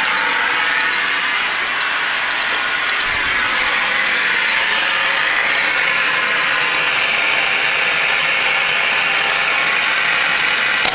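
Clarion RF-1621 AM car radio playing steady static hiss through its speaker, with no station coming through.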